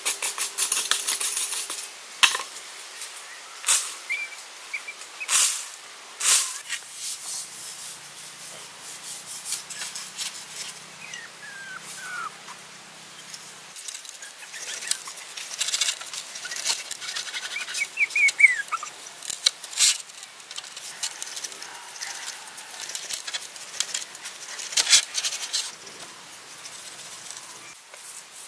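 A pointed hand awl boring holes into green bamboo: a quick run of scraping strokes at the start, then many separate sharp scrapes and knocks. A few short bird chirps come in between.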